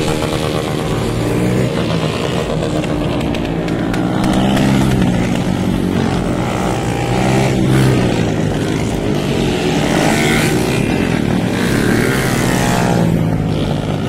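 Small street motorcycles running and revving along the road, the engine pitch rising and falling several times as the riders open and close the throttle.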